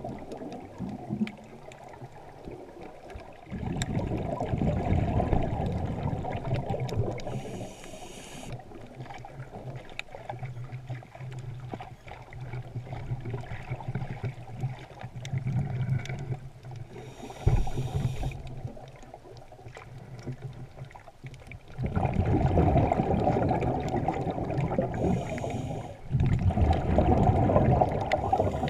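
Underwater sound through a camera housing of a scuba diver breathing on a regulator. A short hiss comes about every ten seconds, and between hisses there are longer stretches of low, rumbling bubble noise.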